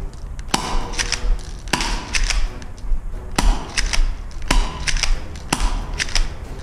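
FN FNS-9 airsoft pistol firing about five shots, roughly one a second. Each crack is followed about half a second later by a quick pair of sharp clicks.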